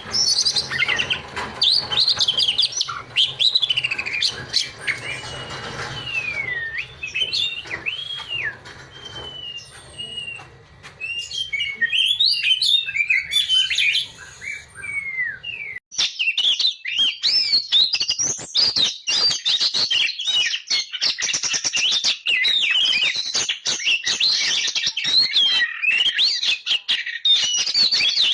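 Oriental magpie-robin (kacer) singing vigorously: varied whistled glides mixed with rapid chattering and clicking notes. About 16 seconds in the recording breaks off abruptly and resumes with a denser, busier stretch of song.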